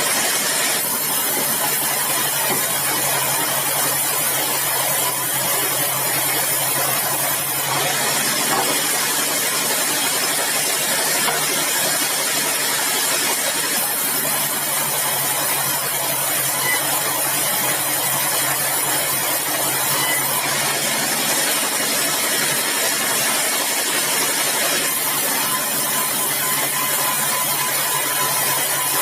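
Sawmill machinery sawing meranti timber: a steady engine hum under a loud hiss that shifts every six seconds or so.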